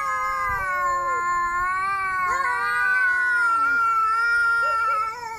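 Angry cat yowling (caterwauling): one long, unbroken, wavering call held through the whole stretch, the threat yowl of a cat ready to fight.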